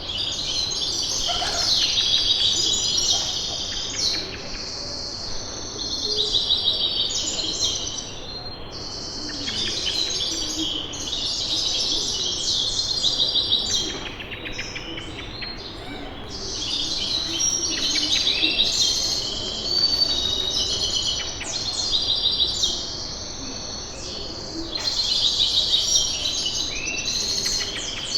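A group of small birds chirping and tweeting together in dense, rapid bouts that swell and fade every few seconds, over a steady low background hum.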